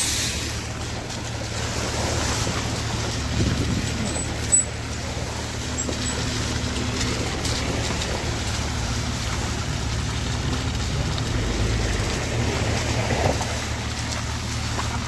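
Cars and SUVs driving slowly past at close range on a wet, muddy road, their engines running over a steady low rumble, with one short knock about four and a half seconds in.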